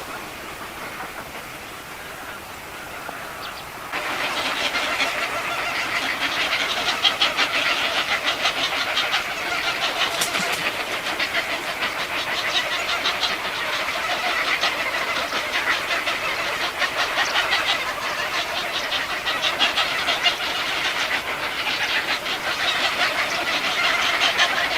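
Nestlings begging for food: a dense, rapid, high chittering chorus that starts suddenly about four seconds in and swells and fades in waves.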